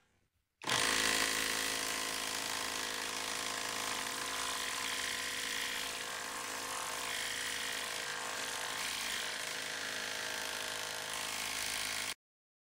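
Cordless impact wrenches hammering steadily in reverse as they back a large lag screw out of wood, in sped-up footage. The sound starts about half a second in and cuts off suddenly near the end.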